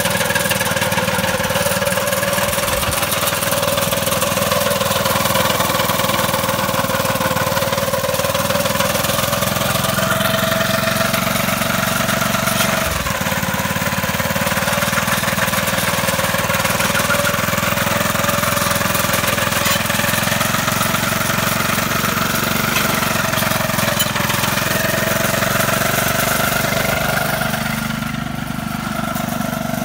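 Vintage Craftsman snowblower's small single-cylinder engine running steadily with the auger turning, its speed wavering slightly up and down. A little quieter near the end.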